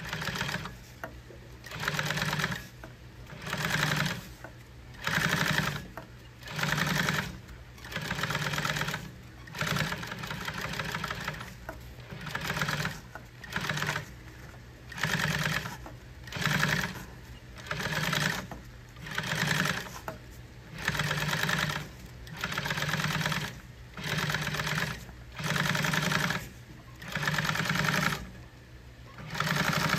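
Industrial sewing machine stitching welt cord onto vinyl in short runs: about one burst of rapid stitching every second and a half, each under a second long, with a low steady hum between runs.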